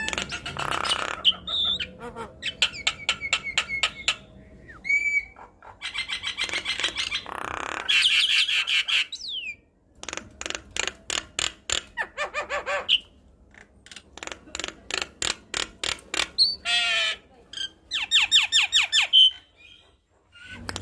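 Javan myna in full song: bursts of rapid rattling clicks and harsh squawking notes mixed with a few short whistles, in phrases a few seconds long separated by brief pauses.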